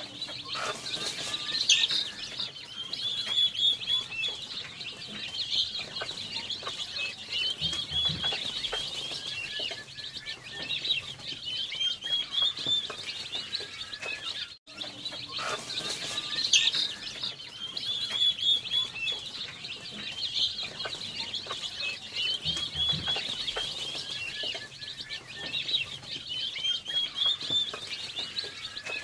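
A brood of country-breed chicks peeping continuously, a dense chorus of short, high chirps, broken by a brief dropout about halfway through.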